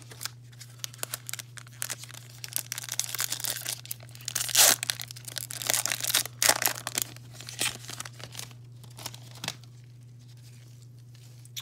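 Foil wrapper of a baseball card pack being torn open and crinkled: a rapid, uneven crackle of tearing, loudest about halfway through, that stops a couple of seconds before the end. A steady low hum runs underneath.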